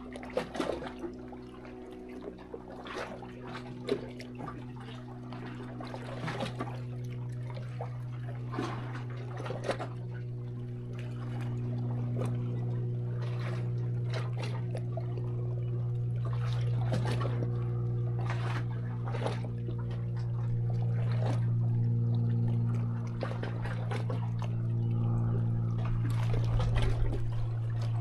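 Small sea waves lapping and splashing irregularly against shore rocks. Under them is a steady low hum that grows louder through the second half.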